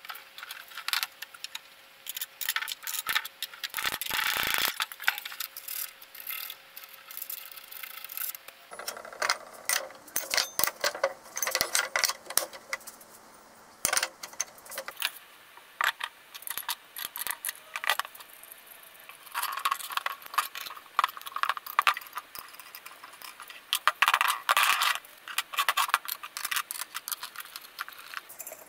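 Steel parts, bolts and nuts being handled and set down on a workbench: irregular metallic clinks, rattles and scrapes.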